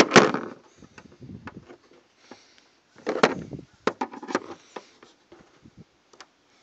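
Clicks, knocks and rubbing of a screwdriver and a hand on a hard plastic trim panel as a plastic tab screw is worked at, then the screwdriver is laid down on the panel. A loud clatter at the start and another cluster of knocks about three seconds in, with single ticks between.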